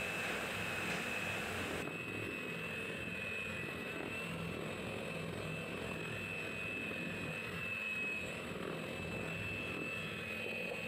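Miyako electric hand mixer running steadily with a high-pitched motor whine, its beaters whisking creamed butter and sugar as an egg yolk is beaten in.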